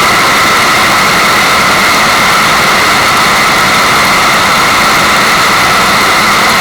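Steady white noise of rushing water, an even unbroken hiss with most of its strength in the upper middle range, played as a tinnitus masker.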